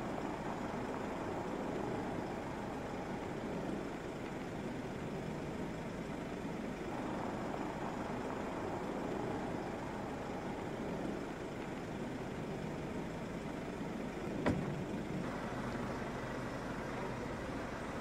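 Mercedes-Maybach S600 sedan driving up and pulling in: a low, steady rumble of engine and tyres on pavement. A single sharp click comes about fourteen and a half seconds in.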